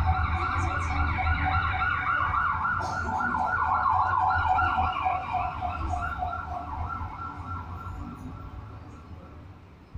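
Recorded emergency-vehicle siren sound effect played through loudspeakers: a fast, rapidly repeating rise-and-fall wail over a deep rumble, fading away over the last few seconds.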